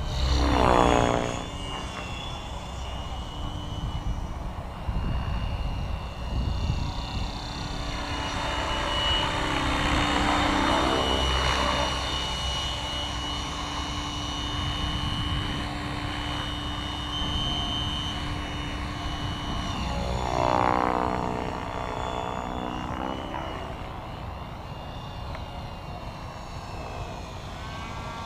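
Align T-Rex 550E electric RC helicopter flying, its Kontronik Pyro brushless motor and rotor giving a steady high whine over a lower rotor hum. It swells louder as it passes close about a second in, around ten seconds and again around twenty-one seconds.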